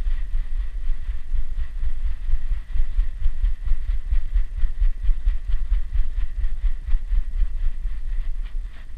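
A dog's rapid rhythmic panting and movement picked up by a camera strapped to its body, with regular huffs a few times a second over low thumping and rubbing from the mount.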